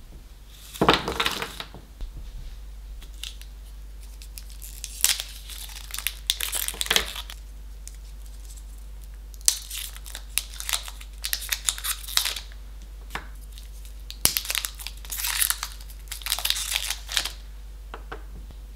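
Gold foil wrappers being peeled and crinkled off small squares of milk chocolate, in several separate crackly bouts, one per square. Between bouts come a few light single taps as the bare chocolate squares are set down on a wooden cutting board.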